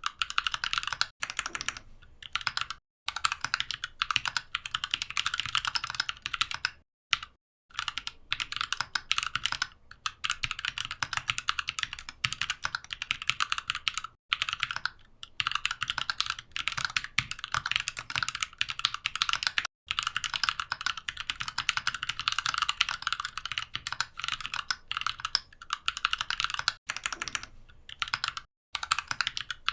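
Fast typing on a mechanical keyboard: a dense, continuous run of key clicks, broken by a few brief pauses, the longest about seven seconds in.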